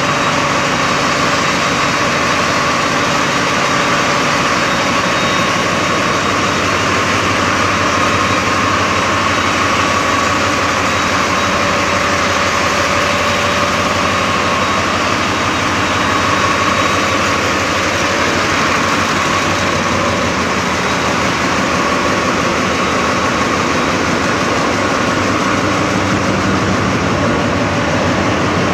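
Ship's engine room machinery running: a loud, steady din of large marine diesel engines and auxiliary machinery, with a steady whine on top.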